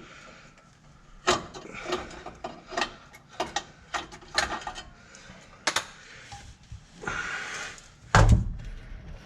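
Metal knocks and clanks as a car transmission is worked loose from the engine by hand, with a scraping noise about seven seconds in and a heavy thump just after eight seconds.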